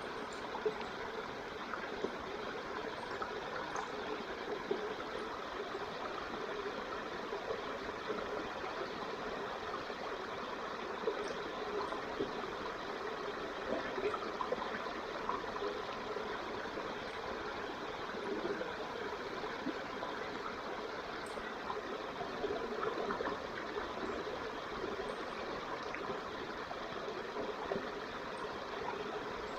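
Wood campfire burning: a steady hiss with small, scattered crackles.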